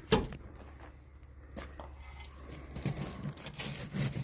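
A single sharp knock just after the start, then quieter scattered clicks and handling noises, typical of wood or tools being knocked and moved about.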